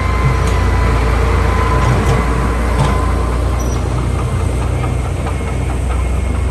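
Diesel engine of heavy earthmoving equipment running under load with a steady low rumble.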